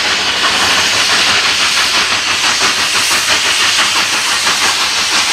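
Two coal-fired steam locomotives working hard as they haul a train: a loud, steady rush of steam hiss broken into a fast, even run of exhaust beats.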